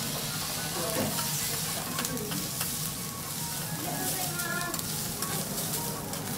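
Fried rice sizzling on a hot teppanyaki steel griddle, a steady hiss with scattered sharp clicks and scrapes of the metal spatula.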